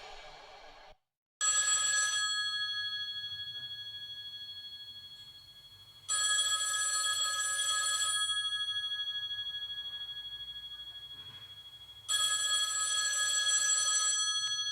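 A telephone ringing three times, about six seconds apart; each ring is a bright two-second burst that fades away slowly.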